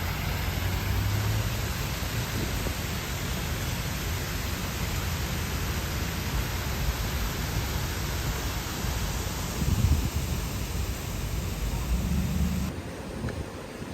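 Steady rushing of water from the Reedy River falls, with low rumbles of wind on the microphone. The sound changes abruptly near the end.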